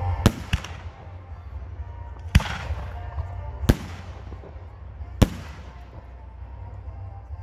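Aerial firework shells bursting overhead: five sharp bangs, two in quick succession near the start, then three more spaced about a second and a half apart, each trailing off in an echoing tail.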